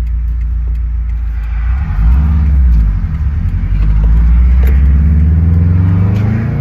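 Subaru WRX's turbocharged EJ257 flat-four engine running steadily, then accelerating with its pitch rising, a short drop about three seconds in as a gear is changed, then rising again.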